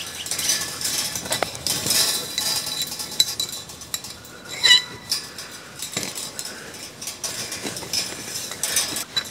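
Steel fence wire being wrapped and twisted by hand around a galvanised steel end post, scraping and clinking against the post, with a brief ringing ping about halfway through.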